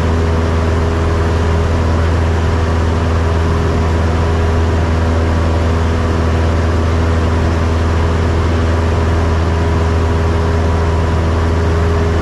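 Cessna 172's piston engine and propeller running steadily at high power, a loud low drone with no change in pitch.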